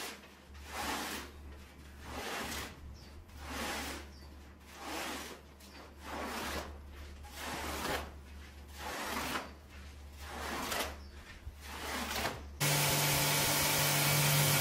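A hand tool dragged across the pile of a dirty shag rug in about a dozen even strokes, roughly one a second. About two seconds before the end a loud, steady motor-driven cleaning machine cuts in with a low hum.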